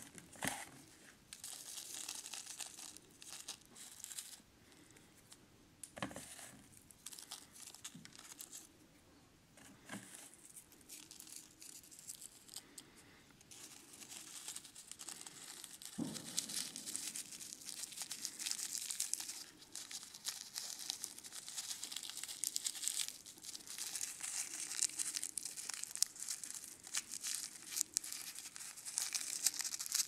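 Cigarette rolling paper crinkling and rustling as it is rolled between the fingers around loose dried tobacco, with a few soft knocks. The rustling eases off for a few seconds in the middle, then picks up again.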